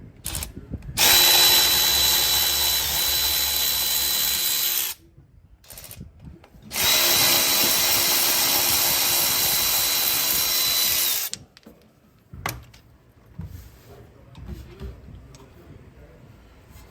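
Handheld power tool, a drill-type driver, spinning a bolt on the truck's front brake assembly. It runs in two steady bursts of about four seconds each, with a high whine, and stops sharply after each. Light knocks of tool handling fall between and after the bursts.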